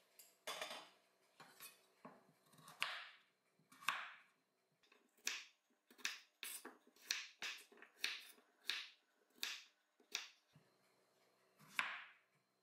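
Chef's knife chopping carrots on a bamboo cutting board: a few spaced chops at first, then a quicker run of crisp chops, about two to three a second, and one last cut near the end.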